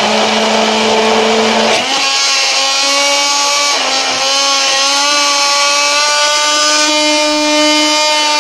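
Hand-held immersion blender running in a tall plastic beaker, blending egg, oil, lemon juice and salt into mayonnaise: a loud, steady motor whine whose pitch steps up a little about two seconds in.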